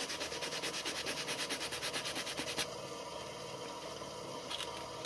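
120-grit sandpaper rubbed quickly back and forth over a rubber inner tube, roughening the surface around a puncture so patch glue will adhere. The strokes are fast and even, stop about two and a half seconds in, and leave a faint steady hiss with a light click or two.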